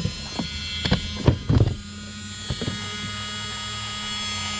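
Small electric water pump of a speed controller's cooling loop, whining steadily as it circulates water; the whine grows a little louder near the end. In the first couple of seconds, several sharp knocks and clicks come from hands handling the plastic connectors and wiring.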